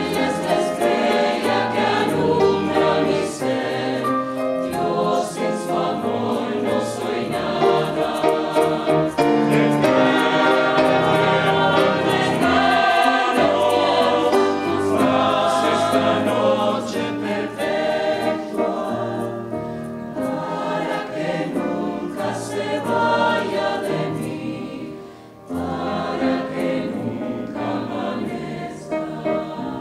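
Mixed choir of men's and women's voices singing together, with a brief dip about 25 seconds in before the voices come back in.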